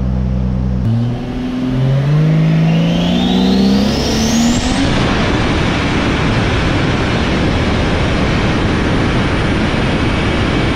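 Ford Falcon's turbocharged Barra inline-six making a full-throttle pull on a chassis dyno, a run that made 560 kW at the wheels. After about a second of steady running it revs up, its pitch climbing with a high whine rising over it, then stays loud and steady at high revs to the end.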